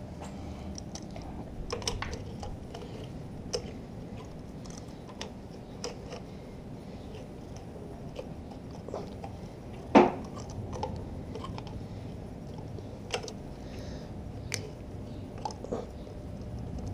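Small clicks and rustles of hands working among wiring and plastic parts at the front of a sport motorcycle to refit the radiator cap, with one sharp knock about ten seconds in.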